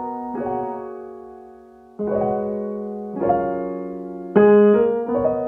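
Background piano music: a slow, gentle run of chords and single notes, each struck and left to fade, a new one every second or so.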